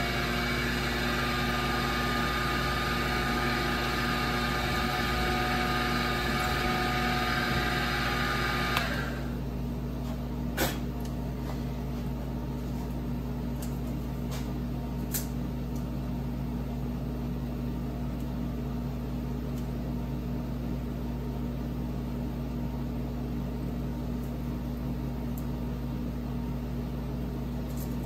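King Canada KC20VS bench mill spindle running with a steady whine, which stops about nine seconds in, leaving a low steady hum. A few sharp clicks follow while the bit in the drill chuck is changed, and near the end the spindle starts winding up again.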